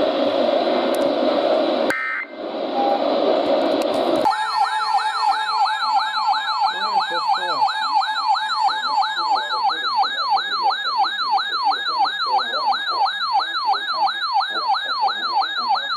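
Emergency Alert System broadcast between two warnings: about four seconds of harsh, static-like data noise with a short break near two seconds, then a loud warbling siren-like alert tone that sweeps up and down about two and a half times a second.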